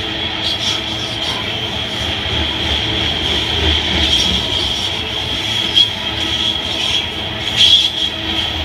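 Freight train of tank cars rolling past close by: a steady rumble of steel wheels on rail under a continuous high wheel squeal. Two sharper squeals stand out, one about six seconds in and a louder one near the end.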